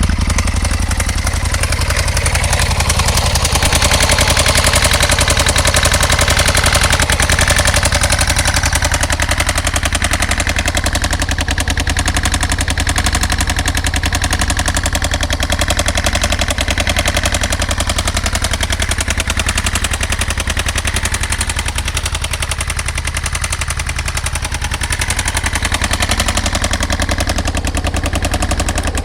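Aprilia RSV motorcycle engine running steadily at an even speed, with no revving; it stops abruptly at the end.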